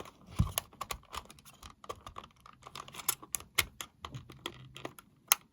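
Irregular small plastic clicks and taps, a few of them louder, as the back cover of a Sony Walkman WM-FX193 cassette player is handled and pressed to snap onto its case.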